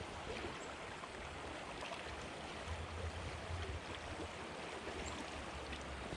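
Small trout creek flowing: a steady rush of running water, with a low rumble underneath.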